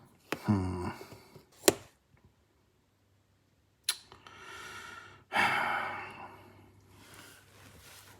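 A person's short voiced grunt, a sharp click, then, after a stretch of dead silence, another click and a long breathy sigh.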